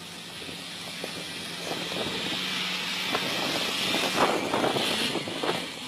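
A car moving on the snowy, icy hill, its tyres hissing and crunching over the snow, growing louder over the first four seconds and easing off near the end.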